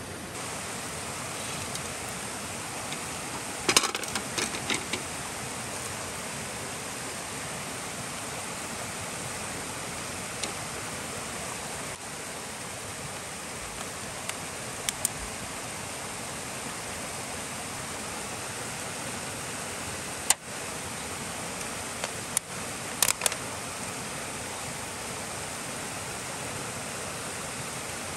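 A small stream flowing with a steady rush of water, with a few light clicks about four seconds in and again near the end.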